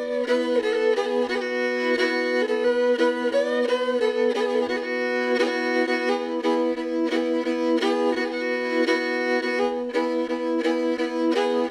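Jouhikko, a Finnish bowed lyre, playing a folk tune over a steady drone, the melody notes changing above the held drone strings.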